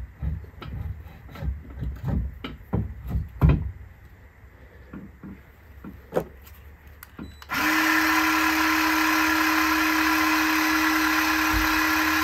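A string of light knocks, then about seven and a half seconds in a power tool starts and runs at a steady pitch without slowing.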